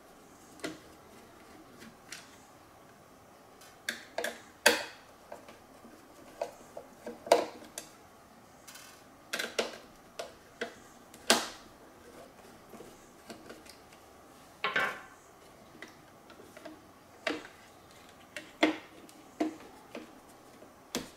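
Irregular sharp clicks and knocks of hard plastic parts as the suction-motor housing of a Roomba automatic clean base is handled and pulled apart, with a few louder knocks spread through.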